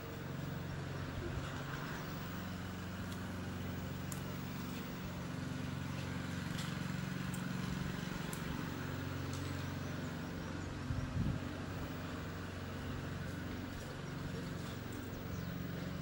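A motor running steadily with a low hum, with faint high ticks and a brief cluster of knocks about eleven seconds in.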